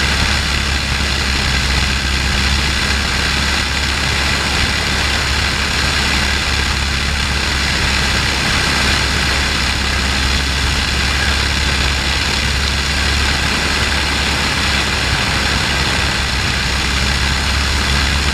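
A de Havilland Tiger Moth's Gipsy Major four-cylinder engine running steadily in flight, with a constant rush of slipstream, heard from the open cockpit.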